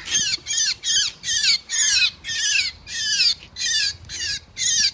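A bird stuck in a glue rat trap giving loud distress calls in quick succession, about two and a half a second, each falling in pitch; the calls stop abruptly near the end.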